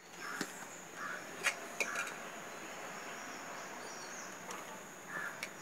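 Hands kneading and pressing coconut roti dough in a clay bowl: soft, irregular squishes with a few light clicks, over a steady high-pitched insect drone.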